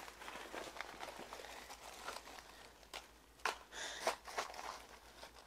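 Rustling and crunching of things being handled, with a few sharp clicks and crackles about three and a half to four seconds in.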